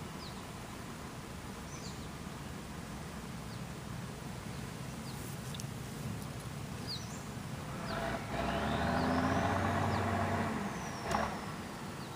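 A vehicle passes by about two-thirds of the way in, swelling up and fading away over about three seconds, above a steady low outdoor background. Short high chirps, like birds, are heard here and there.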